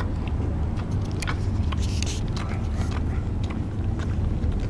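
Great Dane puppy and miniature horse licking spilled ice cream off asphalt: scattered short wet clicks of licking over a steady low rumble, with a brief hiss about two seconds in.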